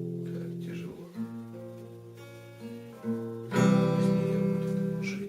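Acoustic guitar playing the closing chords of a song's accompaniment: ringing chords that soften for a couple of seconds, then a loud strummed chord about three and a half seconds in.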